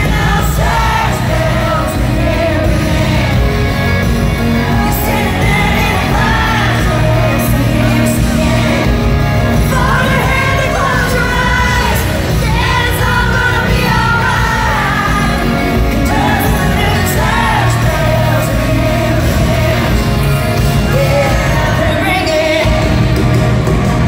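Live amplified concert: a woman singing lead over a loud full rock band with drums, in a large arena, with some shouts from the crowd.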